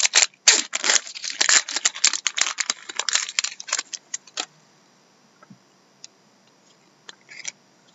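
Foil wrapper of a hobby trading-card pack crinkling and tearing open: a dense run of crackles for about four seconds, then a few light ticks as the cards are handled.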